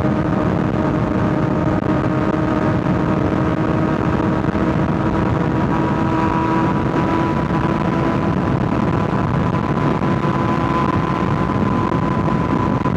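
Kawasaki ZX-6R 636 inline-four motorcycle engine cruising at steady revs, its pitch creeping up slightly about halfway through and then holding, over a steady rush of wind and road noise.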